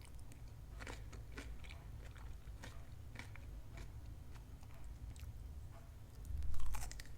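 Close-miked chewing and biting of crunchy food, with irregular crisp crunches throughout and a louder, deeper bite near the end.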